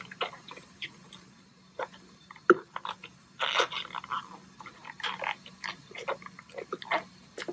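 Rubber dam and dental floss being worked between the tight contacts of a dentiform's teeth: irregular small clicks and snaps, the sharpest about two and a half seconds in.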